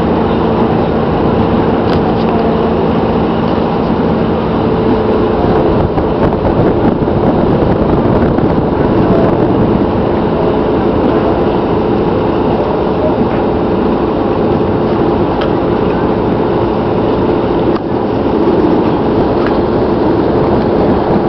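Steady engine drone from a sailboat motoring under power, mixed with wind and water noise; a lower hum drops out about five seconds in.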